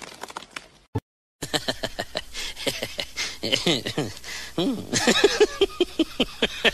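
A person laughing in quick, high giggles that rise and fall, after a brief silence about a second in; the giggling grows denser and louder in the second half.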